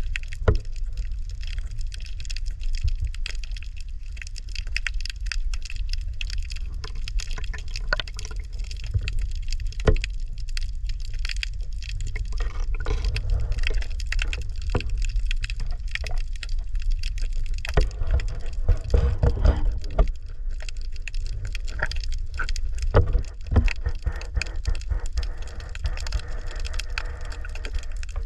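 Water sounds with a steady low rumble and many small clicks and crackles throughout.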